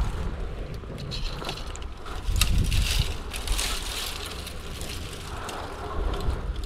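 Dry leaves and twigs rustling and crackling in uneven bursts as branches are pushed aside and handled to reach a wild bee nest, with low wind rumble on the microphone.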